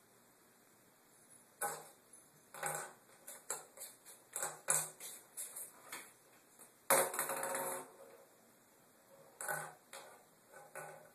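Ping pong ball clattering and bouncing in a bathtub as a kitten bats it around: irregular light hard taps, with a quick run of rapid bounces about seven seconds in.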